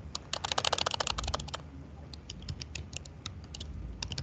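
Typing on a computer keyboard: a fast run of keystrokes in the first second and a half, then slower, scattered keystrokes.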